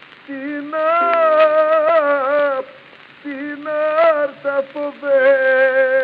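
Instrumental interlude from a 1926 Greek song on a 78 rpm shellac record: melodic instruments playing phrases with sliding, bending notes, broken by short pauses just after the start and about three seconds in. Record surface crackle runs under the music.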